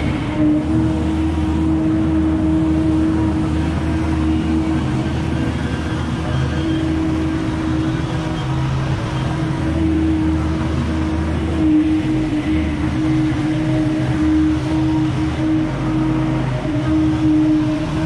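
Gas-powered leaf blowers running steadily, a Ferris FB2000 stand-on blower and a backpack blower, making a continuous engine drone with a steady high whine over it.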